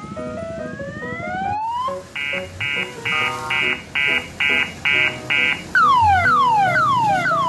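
Electronic multi-tone siren horn cycling through its sounds: repeated rising whoops, then after a sudden cut a run of eight steady beeps about two a second, then quick falling chirps about three a second.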